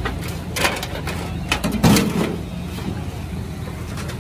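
Street ambience with a steady low hum and several short sharp knocks or clatters, the loudest about two seconds in.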